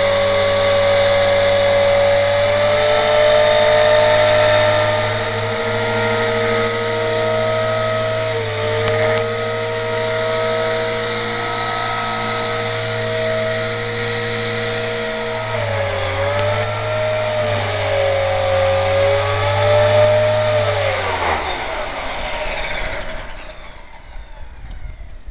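EXI RC helicopter's motor and rotor whining steadily at speed on the ground. About two-thirds of the way through, the pitch briefly dips and recovers, one of the small power glitches affecting the model. Near the end the motor spools down, its whine falling in pitch and fading out.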